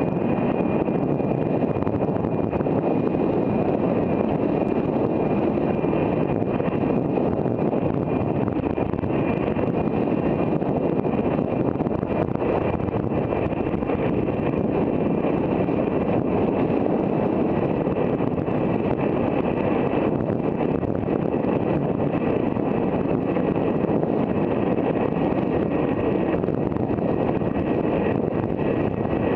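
Electric bike at full speed: steady wind buffeting the microphone, with the Bafang BBS02 mid-drive motor's steady high whine running through it.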